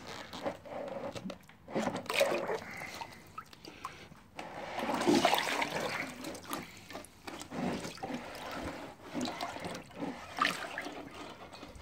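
Steel wheel rim being hauled up out of a tub of oxalic acid solution: the liquid sloshes and splashes, loudest about halfway through, with the acid running off the rim.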